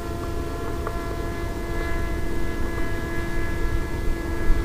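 Brushless electric motor and propeller of an RC flying wing running steadily in flight, heard from on board as a steady whine of several tones over a rough wind rumble.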